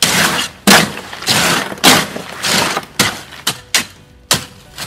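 A hoe is dragged and chopped through wet gravel concrete in a metal wheelbarrow, giving a gritty scrape with each stroke, nearly two strokes a second. The concrete has been made workable with a plasticizer, without extra water.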